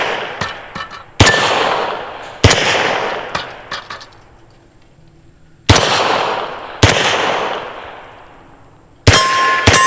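Beretta M9 9mm pistol fired five times at an uneven pace, each shot trailing off in a long echo. Near the end a steel target rings after a hit.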